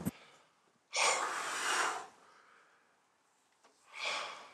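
A man blowing out hard breaths twice: a long, loud exhale about a second in and a shorter one near the end.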